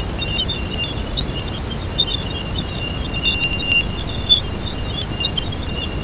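Jupiter's radio emissions as recorded by a spacecraft and turned into sound: a steady rushing hiss over a deep rumble, with crackling pops and a thin high whistle running through it, and a few louder pops.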